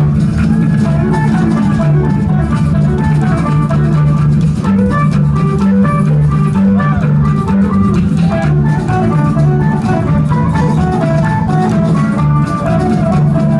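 Live rock band playing: an electric guitar picking a melody over a steady bass line and drum kit.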